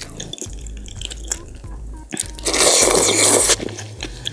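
Close-miked eating sounds from a mouthful of pork back-bone stew: small wet clicks, then a loud wet bite lasting about a second midway, followed by chewing.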